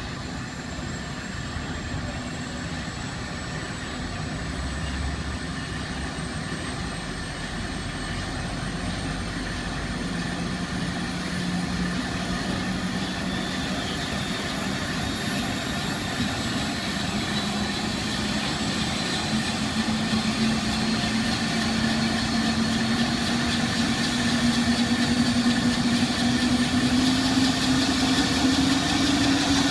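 Helicopter turbine engine and rotor running up before takeoff: a steady high whine and a low hum both rise slowly in pitch and grow louder as the rotor spools up.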